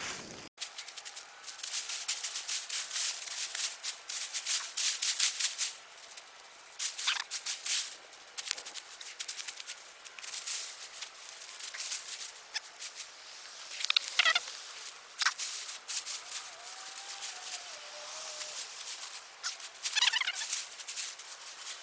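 Dry soil and potato plants rustling and scraping as russet potatoes are dug out by hand, in a series of irregular bursts. A few short, high, wavering calls cut in near the middle and again near the end.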